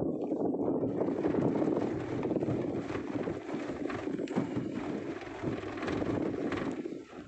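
Wind buffeting the microphone over a vehicle running along a rough, sandy dirt track, with scattered knocks as it jolts over the bumps. It eases a little near the end.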